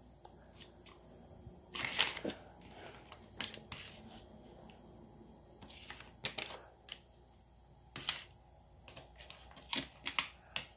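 Irregular light taps and clicks, some in quick clusters, from hands handling foam letter and number pieces on a hard board.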